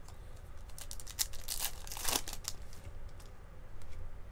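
Baseball cards being handled: a cluster of quick crinkling and rustling noises between about one and two and a half seconds in.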